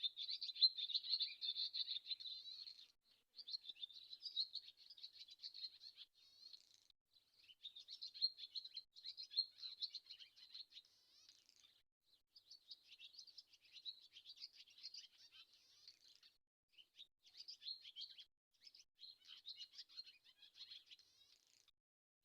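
A swallow singing: a fast, twittering warble in about five phrases of a few seconds each, with short breaks between them. The first phrase is the loudest.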